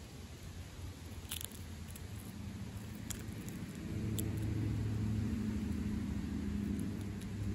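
Low engine rumble of a passing vehicle, swelling about four seconds in and holding, with a few faint sharp clicks from a striped skunk crunching peanuts.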